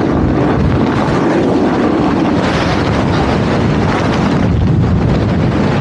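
Steady rushing noise of riding a snowboard downhill: wind buffeting the microphone, mixed with the board sliding over snow.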